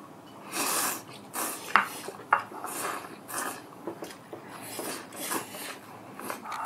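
Noodles being slurped from chopsticks in a string of short, hissing slurps, with a couple of sharp clicks of chopsticks against a bowl early on.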